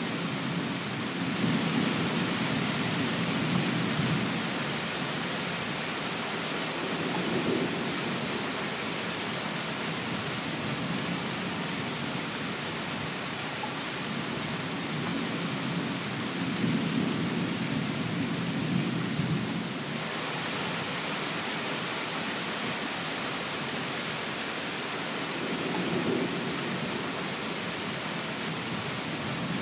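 Steady rain falling, with low rolls of thunder rumbling in several times: near the start, around the middle and near the end.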